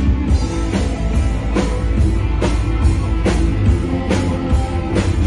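Rock band playing an instrumental passage: electric guitar, bass and drum kit with a steady beat.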